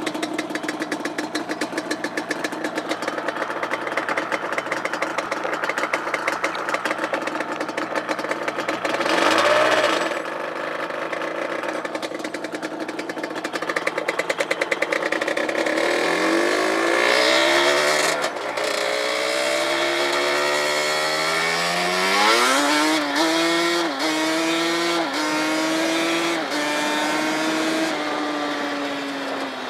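Yamaha Banshee ATV's twin-cylinder two-stroke engine heard from the rider's seat. It runs steadily at low speed with a short rev about ten seconds in. From about sixteen seconds in it accelerates, its pitch climbing through several quick upshifts, then it eases off and falls in pitch near the end.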